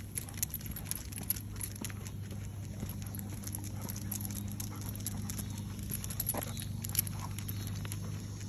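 A basset hound being walked on a leash over asphalt: many light, quick clicks and jingles from the harness and leash hardware and the steps, over a steady low hum.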